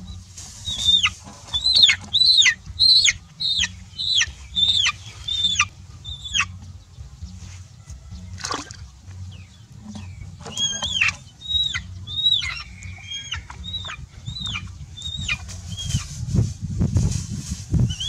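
A young chicken peeping in distress: loud, high peeps that each slide steeply down in pitch, about two a second, in two runs with a pause and a single sharp knock between them.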